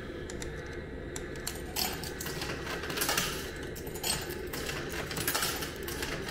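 Coins being fed one after another into a retro curry-rice vending machine's coin slot, a run of irregular metallic clicks and clinks as they drop through the coin mechanism.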